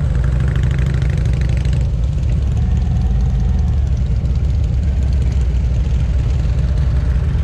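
Motorcycle engine running with a steady, loud low rumble.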